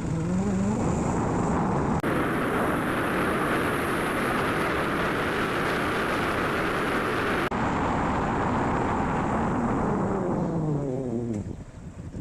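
Motorcycle being ridden: its engine note climbs as it speeds up. A stretch of loud rushing wind and engine noise then cuts in and out abruptly. Near the end the engine note falls away as it slows.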